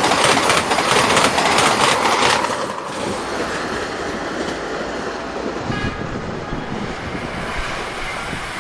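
Motorised toy model of the Vande Bharat Express (Train-18) running on a plastic track loop: a loud whir with rapid clicking from the wheels as it passes close, dropping to a quieter steady whir after about two and a half seconds as it moves to the far side of the loop. A brief tone about six seconds in.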